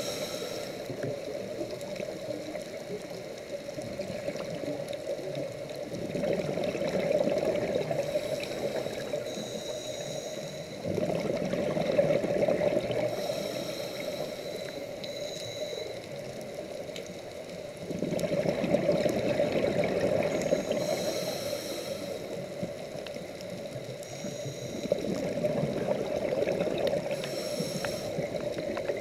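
Scuba diver's regulator breathing underwater: exhaled bubbles gurgle and swell in a loud stretch every several seconds over a steady underwater rush.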